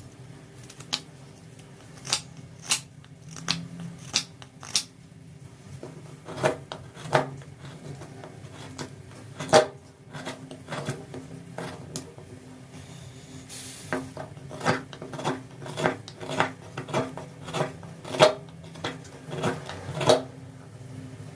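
Wood being hand-carved: a string of sharp, irregular cutting clicks from a blade biting into the wood, with a short scrape about halfway through and a faint steady hum underneath.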